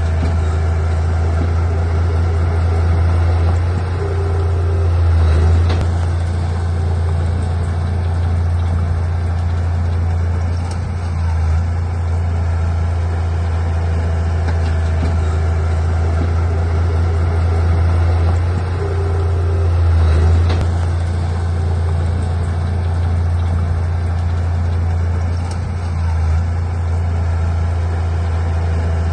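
Heavy diesel engine of earthmoving equipment, most likely the bulldozer, running steadily under load, with a deep drone that swells louder twice and eases off twice.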